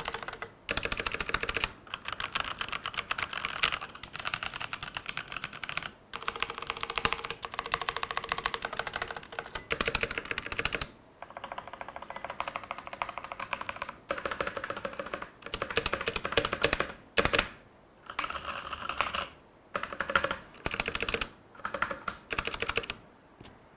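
Fast typing on a Logitech G413 SE-series mechanical keyboard: rapid runs of clicking keystrokes in bursts of a few seconds, with short pauses between.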